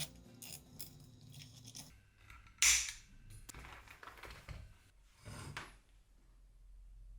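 Background music that stops about two seconds in, followed by a few short scraping, clattering sounds, the loudest about two and a half seconds in.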